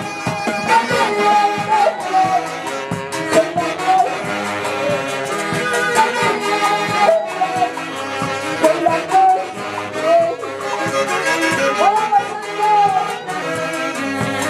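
Live huayno band music, with a saxophone section playing the melody over a steady drum beat.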